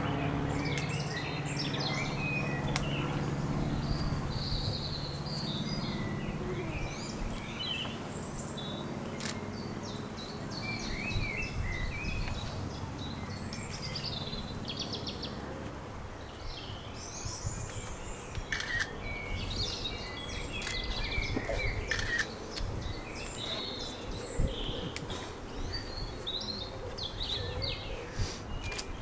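Several wild birds chirping and singing, over a low steady rumble that is strongest for the first ten seconds or so.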